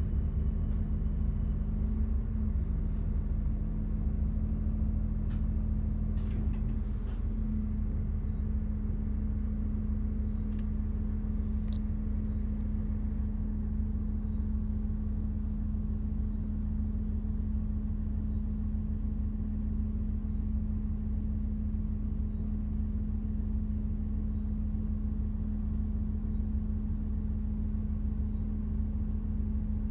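Diesel railcar engine heard from inside the carriage, a steady low hum with one constant drone, as the train comes to a halt and then idles at the platform. The sound settles a little about seven seconds in, when the train stops, and a few faint clicks come in the first dozen seconds.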